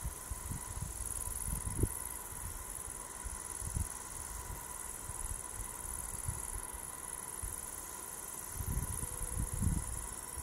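A chorus of crickets chirring in a steady high-pitched band, with wind buffeting the microphone in low gusts that are strongest near the end.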